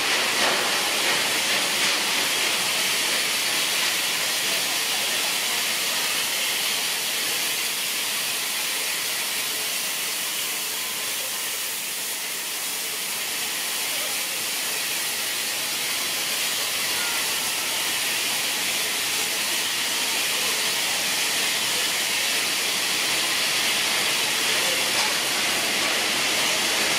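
Bulleid Battle of Britain class steam locomotive hissing steadily with escaping steam as it and its coaches move slowly past.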